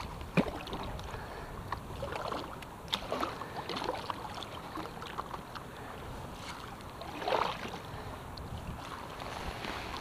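Inflatable stand-up paddleboard on a river: water lapping and small splashes and drips around the paddle and board, with a low rumble of wind on the microphone. A louder swishing splash comes about seven seconds in.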